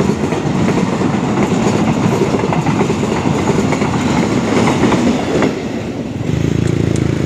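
Container flat wagons of a freight train rolling past, wheels clattering over the rail joints. About six seconds in, the clatter gives way to a steady engine drone.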